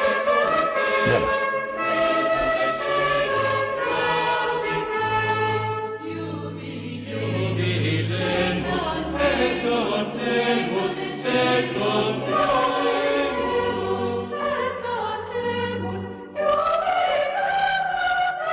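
Choral music: a choir singing held lines over sustained low accompaniment notes.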